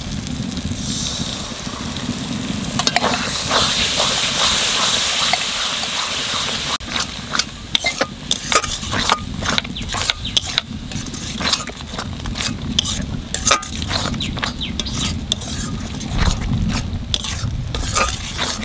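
Onion-tomato spice masala with sour curd (yogurt) just added, sizzling loudly in a large aluminium kadai. From about seven seconds in, a metal ladle stirs and scrapes the paste against the pan in a rapid run of clicks.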